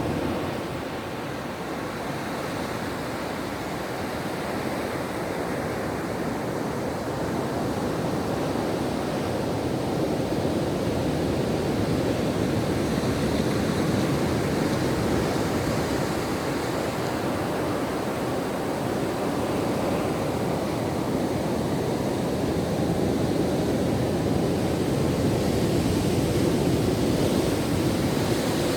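Ocean waves surging and washing ashore: a steady rushing that slowly swells and eases over several seconds at a time.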